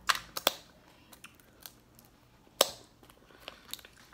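Crab leg shells being cracked open at the table: a few sharp, irregular cracks and clicks, the loudest about two and a half seconds in.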